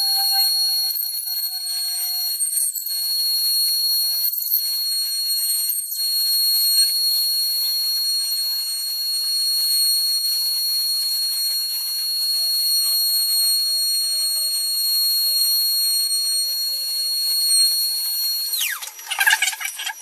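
Spindle of a hexapod-robot CNC router whining at a steady high pitch while it routes a 3D carving, with a fainter lower tone that drifts slowly down underneath. Near the end the whine falls sharply in pitch as the spindle winds down.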